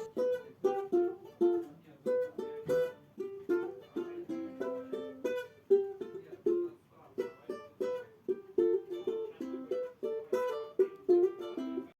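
Music: a single plucked string instrument picks out a melody note by note, then stops abruptly at the end.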